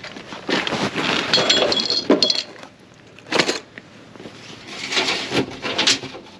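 Clattering and rustling of objects being handled, in several separate bursts, with short metallic clinks that ring briefly about one to two seconds in.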